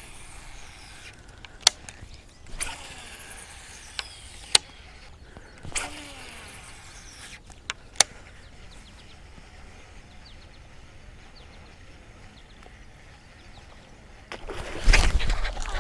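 Bass fishing from the bank with a baitcasting rod and a topwater frog lure: a quiet outdoor background broken by a few sharp clicks and soft swishes while the lure is worked. Near the end a sudden loud rush of noise as a bass strikes the frog and the hook is set.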